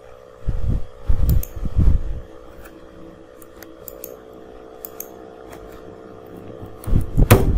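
Steady hum of a computer fan, with a few faint clicks. Low muffled thumps on the microphone come about half a second in and again near the end.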